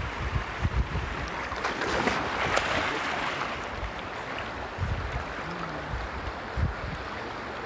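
River water splashing and sloshing as a dog wades through it, with a brief stretch of louder splashing about two seconds in. Wind rumbles on the microphone throughout.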